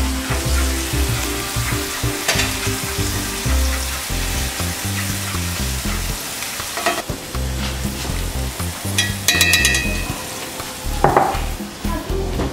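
Seafood and chili pastes sizzling in hot oil in a cast-iron skillet, stirred and scraped with a plastic spatula. There are a couple of brief knocks, and a short ringing clink about nine seconds in.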